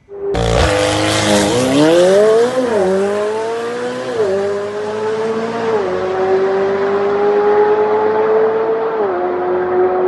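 Tuned, stock-turbo McLaren 720S twin-turbo V8 launching hard down a drag strip and running the quarter mile at full throttle. The engine note climbs, then drops at each of four quick upshifts, and grows more distant as the car pulls away.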